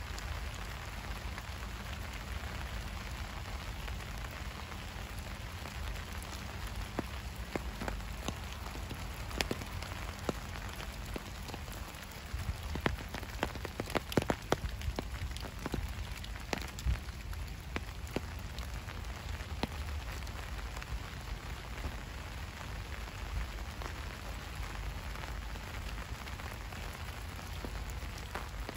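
Steady rain falling, with many individual drops ticking close by; a run of louder, sharper drop hits comes about halfway through.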